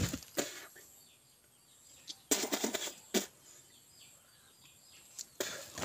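Short crunches and knocks of a concrete hollow block being broken apart by hand, pieces crumbling and dropping, in a few scattered clusters. Faint birds chirp in the background.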